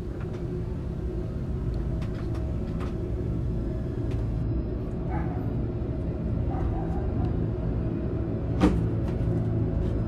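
A low, steady rumbling drone, with a few faint clicks and one sharp knock about eight and a half seconds in.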